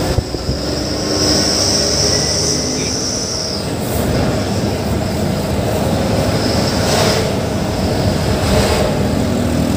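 Sany dump truck's diesel engine and road noise heard from inside the moving cab. A high squeal comes in about a second in and stops sharply a couple of seconds later. Two short hissing bursts follow, a few seconds apart.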